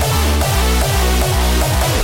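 Electronic dance music with a steady kick-drum beat, about two beats a second, over a sustained bassline.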